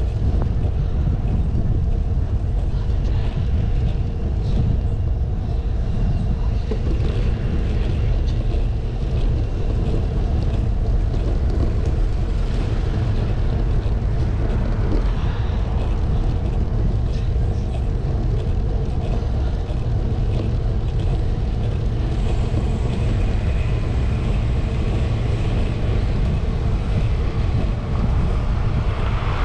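Wind buffeting the microphone of a camera riding on a moving bicycle: a steady low rumble, mixed with road noise.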